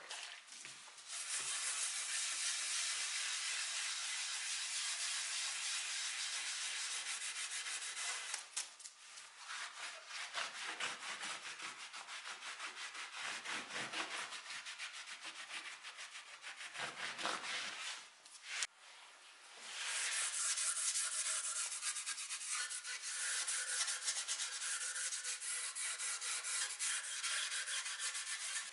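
Abrasive scouring pad, wet with spirit, scrubbing grime off a dark-stained wooden chair frame: a steady scratchy rubbing that breaks into quicker back-and-forth strokes through the middle, pauses briefly about two-thirds of the way through, then runs on steadily.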